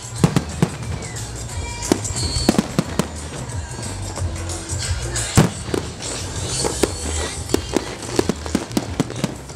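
Aerial fireworks shells bursting in quick, irregular succession, sharp bangs throughout, the loudest about a quarter second in and about five and a half seconds in. Music with a low bass plays underneath.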